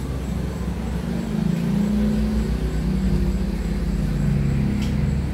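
A motor engine running steadily, a low hum whose pitch drifts slightly, with a faint click near the end.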